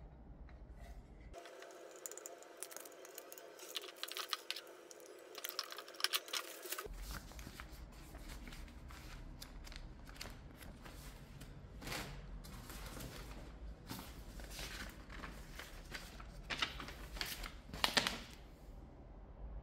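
Paper rustling and crinkling as a printed manual's pages are flipped and a large folded instruction sheet is unfolded, with scattered light handling clicks and taps; the loudest rustles come at about 12 seconds and again near 18 seconds.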